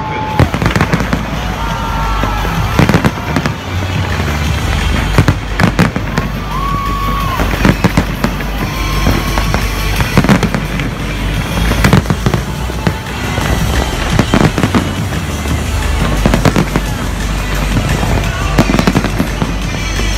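Fireworks display: a rapid, continuous stream of aerial shells bursting with loud bangs and crackling, over music with a steady bass line.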